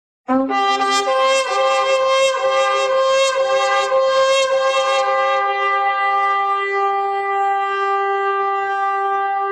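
A loud, sustained horn-like tone that starts abruptly after a moment of silence. Several notes sound together at first, thinning out to a single held note by the second half.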